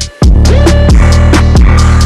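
Loud electronic dance music with a heavy bass line and kick drum, briefly dropping out just after the start.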